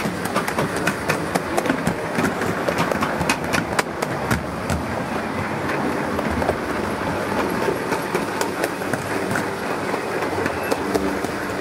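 Gauge 1 model train wheels running over the track, an uneven run of sharp clicks over a steady rolling rumble, heard from a camera riding on the moving train. The clicks come thickest in the first half and thin out later.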